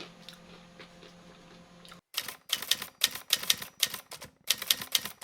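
Crunchy chewing of crispy kangkong chips close to the microphone: rapid crackly crunches in quick clusters, starting suddenly about two seconds in after a short stretch of quiet room hum.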